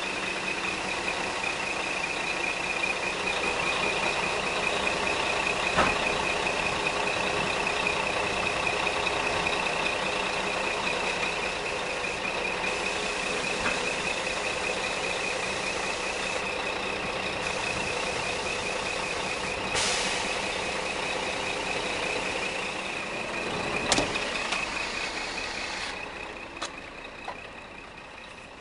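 A truck's warning beeper sounds continuously as one high, fast-warbling tone over the noise of the running truck, with a few sharp clicks. The tone stops about two seconds before the end.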